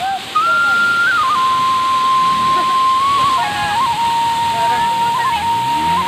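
A slow melody of long, high held notes, stepping from pitch to pitch, over the steady rush of a waterfall.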